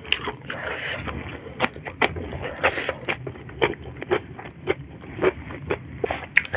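Close-miked chewing of a mouthful of spicy shrimp sambal, with lips closed: a run of short wet mouth clicks and smacks, roughly two or three a second.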